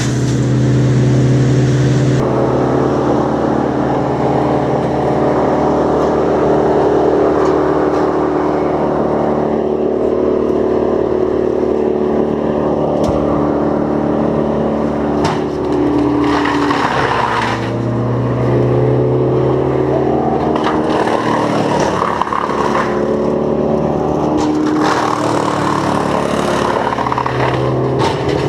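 Engine running continuously, its speed rising and falling several times.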